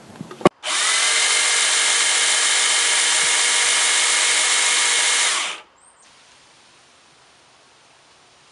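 Ryobi 18V One+ cordless pole saw's motor and chain running free, not cutting: a click, then a quick spin-up to a steady whine that holds for about five seconds and stops.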